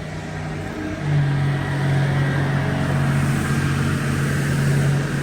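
Olin 545 concrete pump's engine running steadily under load, growing louder about a second in.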